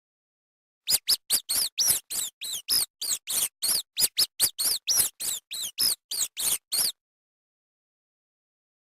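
Rat squeaking: a rapid run of short, high-pitched squeaks, about four a second, each rising and falling in pitch, starting about a second in and stopping about two seconds before the end.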